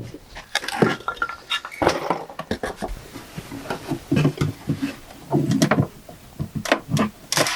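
Irregular knocks, clinks and rattles of hard objects being handled, with a few duller thuds in the middle.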